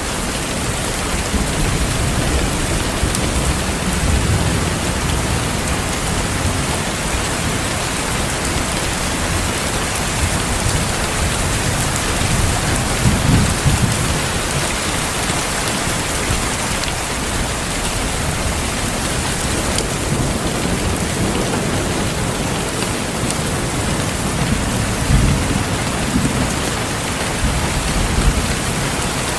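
Steady heavy rain falling in a thunderstorm, with low rolls of thunder rumbling about halfway through and again near the end.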